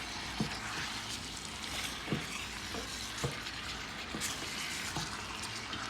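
Chicken breast and chopped vegetables sizzling steadily in hot oil and curry in a pan as they are stirred together, with a few short knocks of the stirring utensil against the pan.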